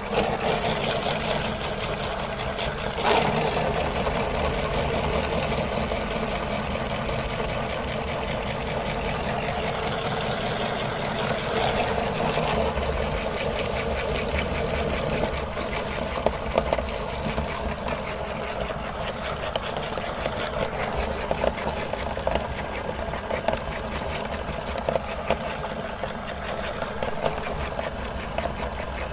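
Electric meat grinder motor running steadily as it grinds avocado, with a sharp knock about three seconds in.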